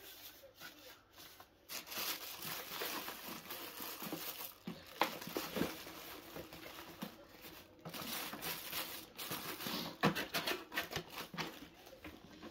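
Packaging crinkling and rustling as white foam and plastic wrapping is peeled open and cardboard inserts are handled in a box, with a few sharp knocks along the way.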